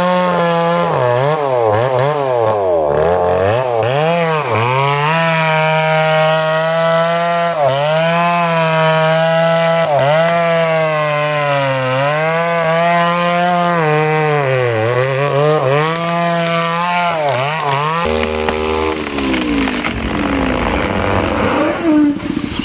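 Two-stroke chainsaw cutting into a large durian trunk, its engine note dipping and recovering again and again as the chain bogs under load and frees up. Near the end the saw's note falls away, and irregular cracks follow as the cut trunk starts to tip over.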